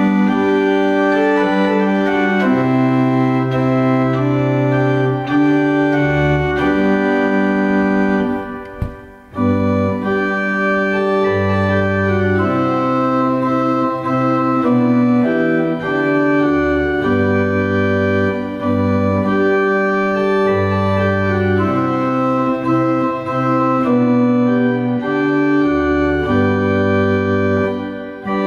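Church pipe organ playing a hymn in sustained full chords over a moving bass line, with a short break between phrases about eight seconds in.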